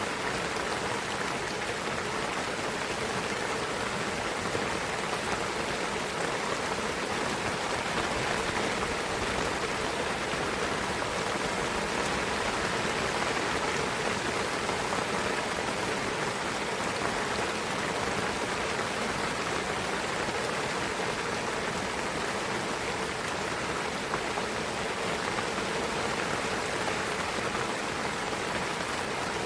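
Steady rain falling in a pine forest, an even patter of drops without a break.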